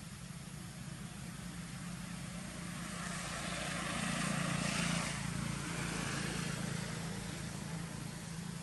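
Engine noise of a passing vehicle, swelling to a peak about halfway through and fading slowly again.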